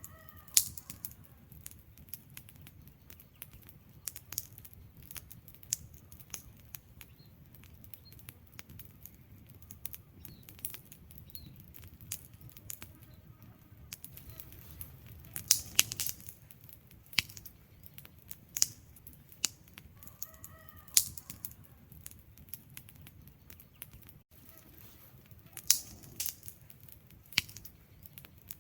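Wood fire burning, with irregular sharp crackles and pops over a low rumble of flames; a few pops are much louder than the rest.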